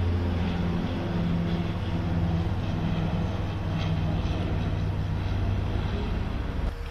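Twin-engine Canadair amphibious water-bombing plane flying low overhead, its engines giving a steady, loud drone that cuts off near the end.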